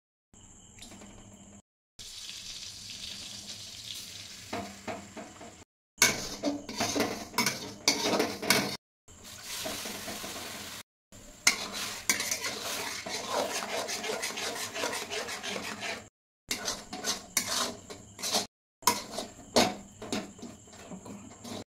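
Steel spatula scraping and tapping against a metal kadai while semolina cooks in butter with a steady sizzle. Partway through, the sizzle continues as water is poured in, then comes a run of quick scrapes and knocks as the mixture is stirred and pressed into a dough.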